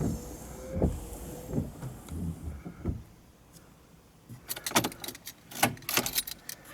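A small electric motor whines steadily for about a second and a half at the start, amid low knocks. Then comes a quiet spell, and then a run of sharp clicks and knocks from plastic and metal parts being handled.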